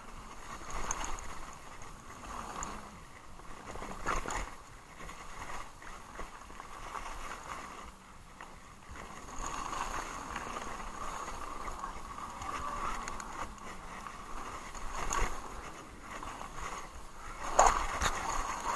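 Haibike Sduro electric mountain bike descending a dirt and gravel trail: steady rolling noise from the tyres and rattling of the bike, with sharp knocks over bumps, the loudest near the end.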